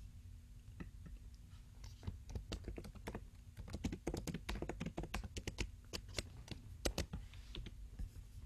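Typing on a computer keyboard: a fast, uneven run of key clicks starting about two seconds in and stopping near the end.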